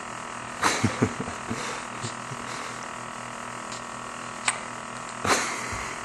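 Hiccups: a sharp hiccup less than a second in, with a smaller one just after, and another about five seconds in, over a steady background hum. A short click sounds between them.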